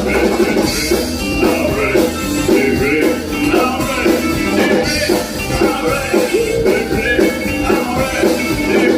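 Rock-style music with guitar and singing, playing at a steady beat.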